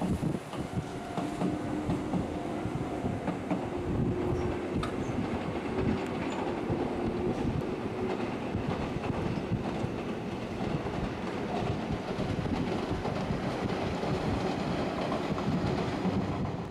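Red Meitetsu two-car electric train running along the track, a steady rumble of wheels and running gear throughout.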